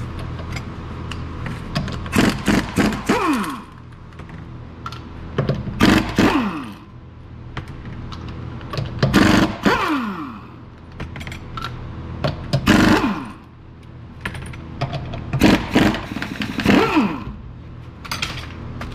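Air impact wrench taking the lug nuts off a car wheel: five bursts a few seconds apart, one per nut, each ending in a falling whine as the tool spins down.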